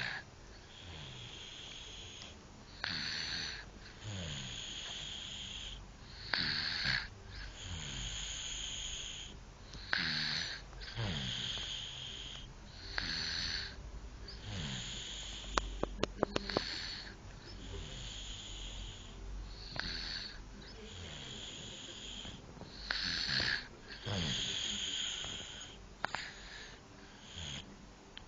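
Steady snoring: a short noisy breath in about every three to three and a half seconds, each followed by a long hissing breath out. A few sharp clicks come about halfway through.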